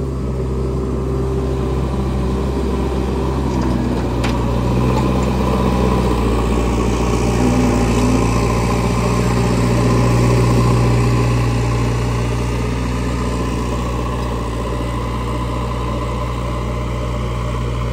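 JCB backhoe loader's diesel engine running loud and steady as the machine works its front bucket over a muddy road, the engine note swelling a little around the middle.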